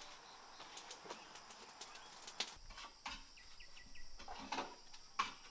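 Faint outdoor ambience: scattered small clicks and rustles, with a quick run of short high bird chirps about three seconds in.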